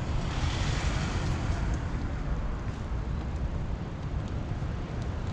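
Steady background noise with a low rumble and no clear rhythm or pitch.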